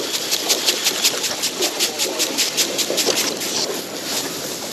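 Fishing reel being wound in, with an even run of sharp clicks about six a second that stops about three and a half seconds in. A steady hiss of wind and water noise runs underneath.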